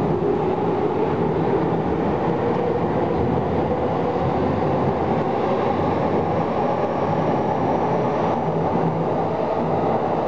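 Electric commuter train moving along the track of a station platform: a steady running rumble with a faint whine.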